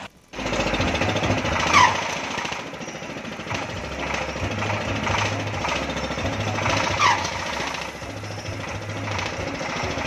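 Diesel engine of a kora-kora swing ride running hard with a fast, steady knocking, driving the rubber wheels that push the swinging boat. A short falling squeal cuts through twice, about five seconds apart.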